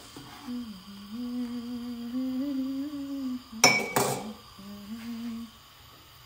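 A woman humming a slow tune with her mouth closed, broken about three and a half seconds in by a short, loud clatter, then a second of humming again before it stops.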